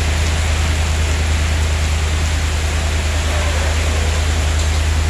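Heavy rain pouring steadily, a dense even hiss with a strong low rumble beneath it.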